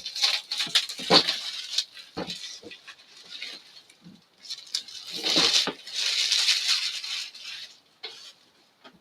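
Cardboard game box and its packaging being handled. There is a quick run of taps and clicks, then a louder rustling, scraping stretch of a couple of seconds about halfway through.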